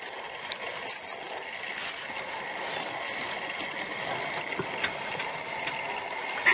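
Porcupine rattling its raised quills in defence: a steady dry rattling hiss.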